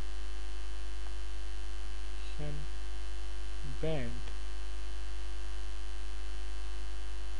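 Steady low electrical mains hum. Two short murmured vocal sounds come about two and a half and four seconds in.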